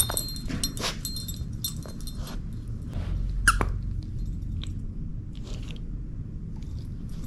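Dog chewing and biting a plush toy with a jingle bell: crinkly, rustling bites throughout, the bell tinkling near the start, and one short squeak from the toy about halfway through.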